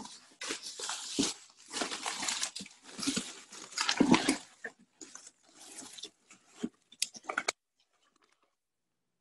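Hands stirring through a plastic tub of paper and card offcuts: paper scraps rustling and crackling in irregular bursts, stopping about two seconds before the end.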